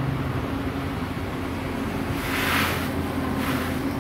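Screwdriver working on the screws of a small plastic DC water pump housing, with two short scraping sounds about two and three and a half seconds in, over a steady low hum.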